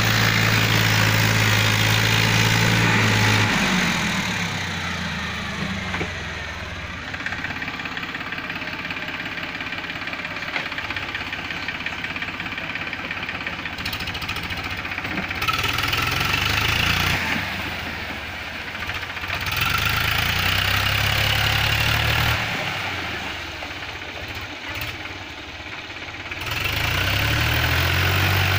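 Powertrac tractor's diesel engine running under load as it drags a rotary tiller through a flooded paddy field. The steady engine hum is loud at first, drops away about four seconds in, swells twice in the middle and comes back loud near the end.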